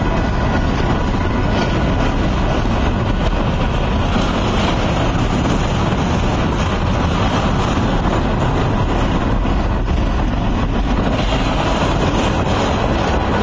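Double-stack intermodal freight cars rolling past at close range: a loud, steady rumble of steel wheels on rail with no break.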